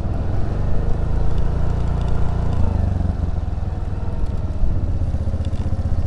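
Suzuki Burgman Street 125 scooter's single-cylinder engine running steadily, its pitch dropping a step about two and a half seconds in.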